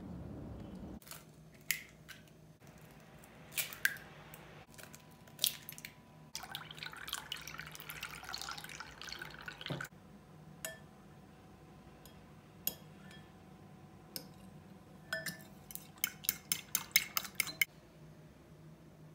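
Kitchen sounds around a glass mixing bowl: a few sharp taps, then liquid splashing into the bowl for about three seconds. After that, eggs and milk are beaten with a metal fork, its tines clinking quickly against the glass near the end.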